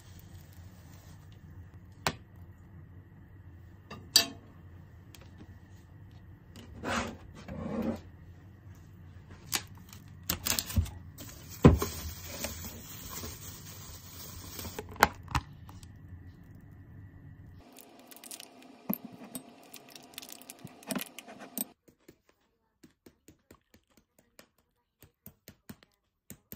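Kitchen handling sounds over a low steady hum: chopsticks and a frying pan clinking against a bowl, then plastic cling film crinkling as it is peeled off a bowl. Near the end, a squeeze bottle of ketchup is tapped again and again, a series of light taps.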